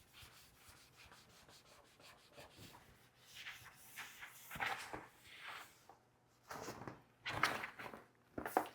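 A MacBook's case being wiped dry by hand: a series of soft, faint rubbing strokes, starting about two seconds in.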